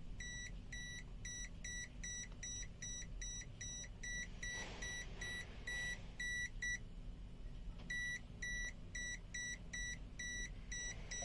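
CZD FS898 multimeter's non-contact voltage detector beeping quickly and evenly, about two to three high beeps a second, as it senses AC voltage near a live wire; the beeping stops for about a second midway and then starts again.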